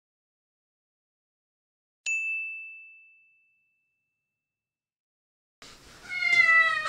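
A single bright ding about two seconds in, ringing at one high pitch and fading out over about a second. Near the end, a cat meows: one drawn-out cry sliding slightly down in pitch.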